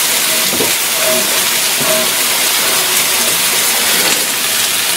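Onion, tomato and bell pepper sizzling in oil on a metal planchita tray over a low flame: a steady frying hiss.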